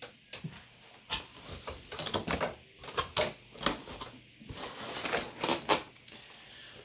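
Cardboard box being opened and handled by hand: the flaps scrape and bend, and the plastic air-bubble packing inside crinkles, in an irregular run of crackles and rustles.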